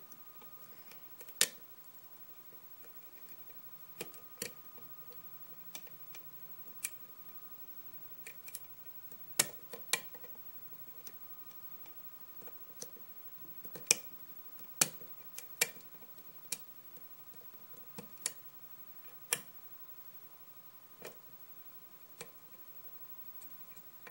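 Lock pick and tension wrench working the pin tumblers in the keyway of an antique four-pin Yale push padlock: sharp metallic clicks and ticks at irregular intervals, with a few louder ones about a second and a half in and around the middle.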